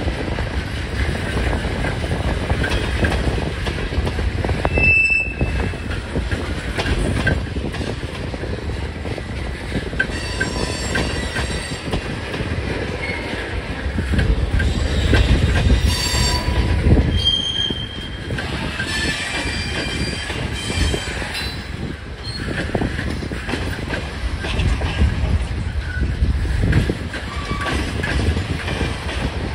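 Freight train of tank cars and covered hopper cars rolling past, a steady rumble of wheels on rail. Several brief high-pitched wheel squeals cut in through the middle.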